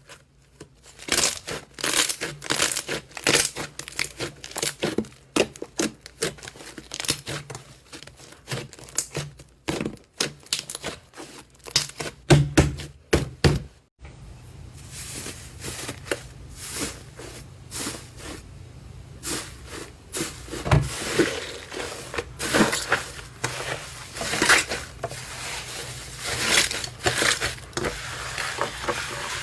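Slime being squeezed and poked by hand, making dense irregular sticky clicks, pops and crackles. The sound breaks off abruptly about halfway through and resumes with a slightly different background hum.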